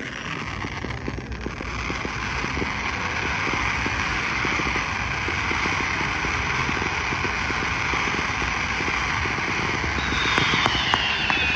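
Large fireworks fountain hissing steadily, building over the first couple of seconds and then holding. Near the end, sharp crackling pops and faint falling whistles join in.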